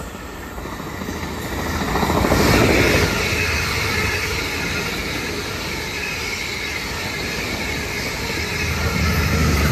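Third-rail electric multiple-unit passenger train running past at speed. The sound swells as the front passes about two seconds in, holds as a steady rush and rumble while the carriages go by, and swells again near the end.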